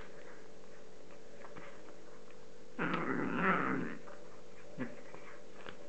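Cat growling and mewing while eating raw chicken: one call of about a second, roughly three seconds in, then a brief low call near the end.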